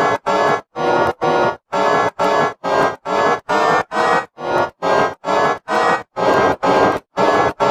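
Emergency Alert System-style alarm tone, altered by a video-editing effect, sounding as loud repeated beeps of several tones at once, about two to three a second.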